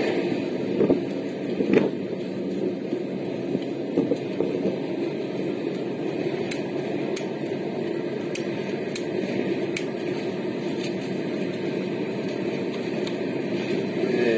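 Steady road and engine noise inside a moving car's cabin on a motorway, with a few faint, scattered clicks.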